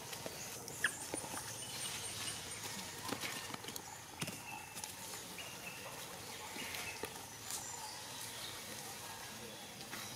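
Dry fallen leaves rustling and crackling, with scattered sharp clicks and ticks, as young macaques scuffle and wrestle on the leaf litter.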